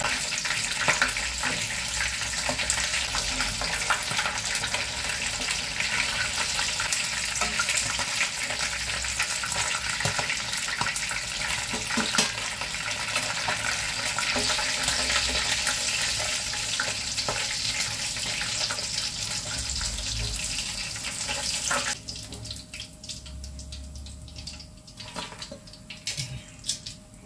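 Ungkep chicken pieces frying in shallow oil in a wok: a steady crackling sizzle with clicks of metal tongs against the pan. The sizzle drops off sharply about 22 seconds in, leaving a faint sizzle and a few tong clicks as the wok is emptied of chicken.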